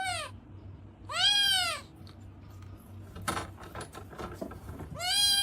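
A cat meowing repeatedly. Each meow is a short call that rises and then falls in pitch: one trails off at the start, a full one comes about a second in, and another begins near the end.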